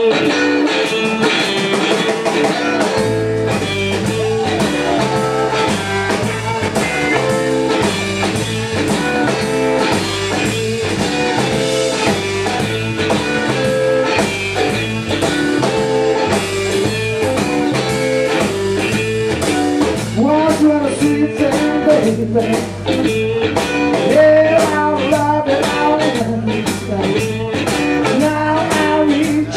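Live blues-rock trio playing: electric guitar riffing over a drum kit, with electric bass coming in about three seconds in.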